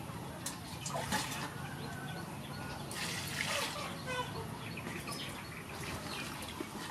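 Water scooped with a metal bowl from a clay jar and poured into an aluminium basin, splashing around a second in and again about three seconds in, with hands swishing vegetables in the water. Birds chirp faintly.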